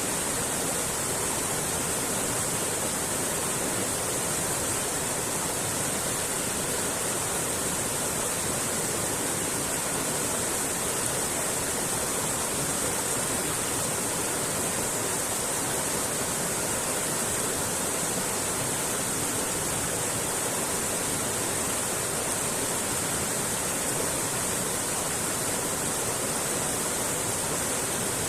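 Mountain creek flowing over rocks: a steady, even rush of water with no breaks.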